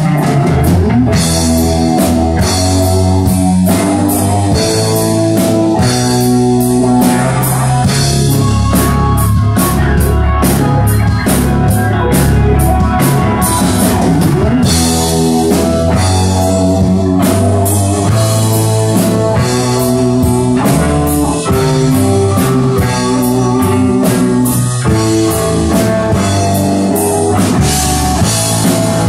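Live rock band playing an instrumental passage, loud and steady: electric guitars, bass guitar and a drum kit.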